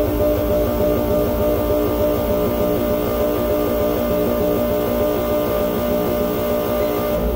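Experimental electronic noise music played live: a steady drone of several held tones over a rough, fast-fluttering low buzz, the bass swelling near the end.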